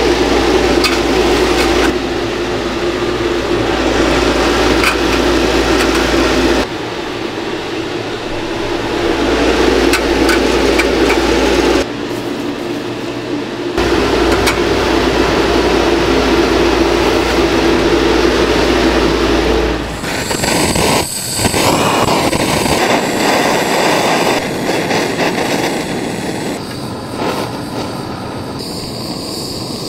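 Steady machine hum with a low rumble and occasional light clicks and knocks of metal grates and smoker door as brisket is loaded into a commercial smoker; the hum breaks off abruptly several times. In the last third it gives way to the rushing hiss of a gas torch flame lighting a charcoal briquette.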